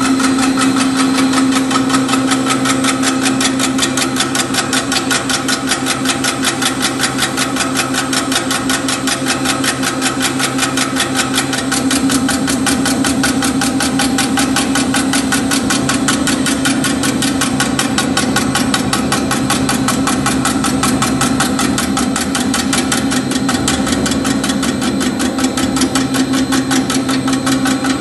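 DRB-180 automatic meat slicer running and cutting cooked meat into thin slices: a fast, even rhythm of cutting strokes over a steady motor hum.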